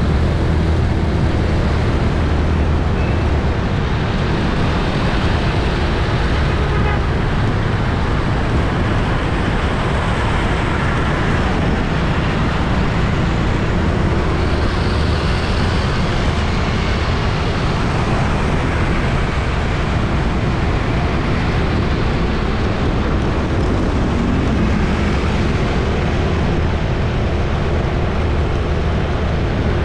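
Busy city street traffic: a steady, unbroken wash of engines and road noise with a low engine hum underneath.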